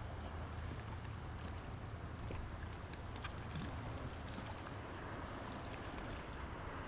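Steady low wind rumble on the microphone over faint lakeside ambience, with a few faint short sounds from the feeding birds.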